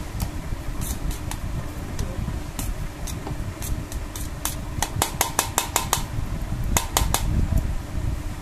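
Metal spoon clinking and scraping against a stainless steel plate while stirring ghee into a damp rice bait mix, with a quick run of clicks about five seconds in and a few more near the end, over a steady low hum.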